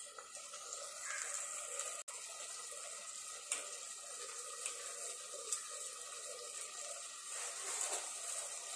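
Chicken masala simmering in a pot on the stove: a faint steady sizzling hiss with a few light ticks as dry roasted vermicelli is dropped in.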